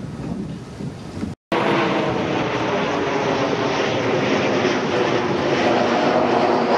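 Wind on the microphone, then after a cut about a second and a half in, a loud, steady aircraft engine drone passing overhead, with a faint rising whine near the end.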